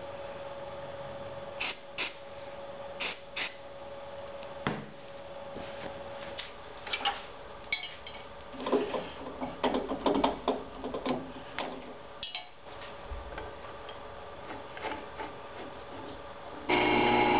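Scattered clicks and knocks of a metal jig and parts being handled and set on a steel drill press table, busiest about halfway through. Near the end the drill press motor switches on and runs steadily, louder than everything before it.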